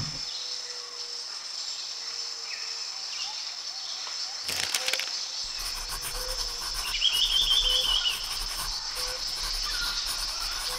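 Steady insect chirring, like crickets, with a few short bird chirps over it.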